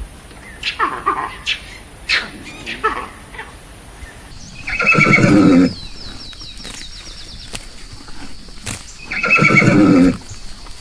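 Horse neighing twice, each whinny about a second long, the second about four and a half seconds after the first. Before them, a run of short, falling animal calls.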